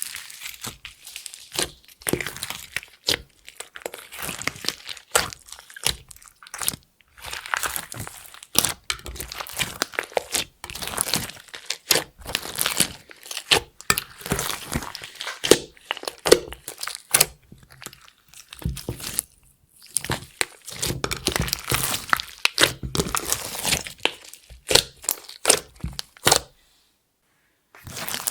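Clear slime being squished, stretched and folded by hand, giving a dense run of irregular sticky crackles, pops and squelches. The sound breaks off completely for about a second and a half near the end.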